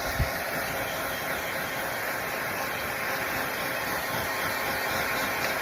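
Handheld blow dryer running steadily, an even rushing of air, with one brief low thump just after the start.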